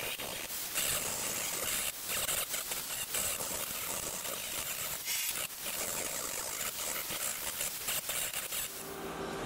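Belt file grinding down a weld bead on a steel sill panel: a steady, hissy grinding, dipping briefly twice.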